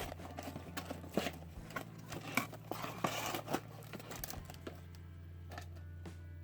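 Camcorder box and its packaging being opened by hand: crinkling and rustling with scattered clicks and scrapes, dying down after about four seconds, over a low steady hum.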